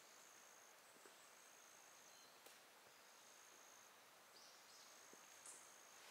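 Faint forest ambience in which a thin, high-pitched steady call repeats about four times, each about a second long, with a few short chirps in between.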